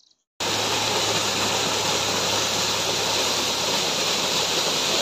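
Small waterfall pouring down a rock face and splashing onto the ground below: a steady rushing of falling water that cuts in suddenly about half a second in.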